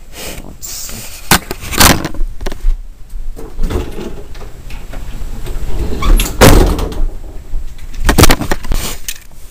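Camera being handled and moved about, rubbing and knocking against its microphone. There are several loud bumps, about two near the start and two more in the second half, with rumbling and rustling between them.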